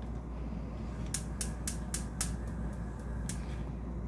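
Gas stove's spark igniter clicking as the burner knob is turned to light it: a run of sharp ticks, about four a second, starting about a second in, then one more tick a second later.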